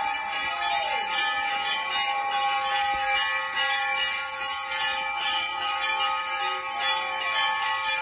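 Temple bells ringing without pause during an aarti, a dense, even clangour of many overlapping ringing tones.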